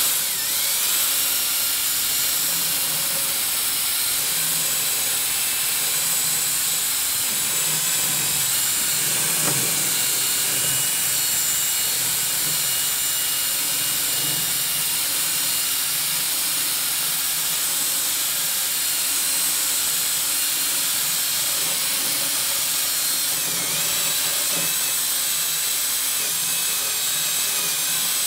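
Cordless drill spinning a steel wire cup brush against a rusty cast grill grate, scouring off rust and old grease: a steady scraping hiss with a high motor whine, running without a break.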